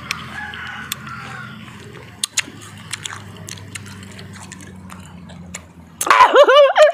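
Mouth noises of someone chewing a crisp, juicy raw bilimbi (belimbing wuluh), with scattered sharp crunch clicks. About six seconds in, a loud, pitched voice-like cry that wobbles up and down cuts in over it.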